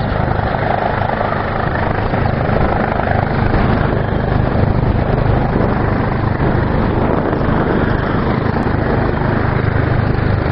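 Rescue helicopter running close by: a steady, loud rotor and engine noise with a fast low beat.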